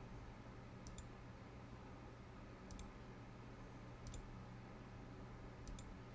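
Computer mouse clicks: four quick double-clicks spaced a second or two apart, over a faint steady low hum.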